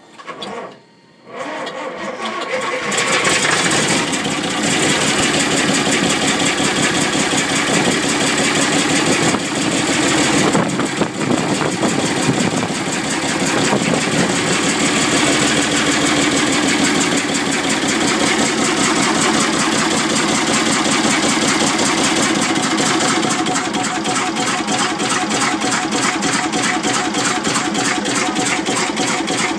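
Leyland 680 six-cylinder diesel engine of a Class 119 diesel multiple unit starting readily after 19 years out of use: it catches about a second in and runs on with rapid, even firing pulses. It settles a little quieter about two-thirds of the way through.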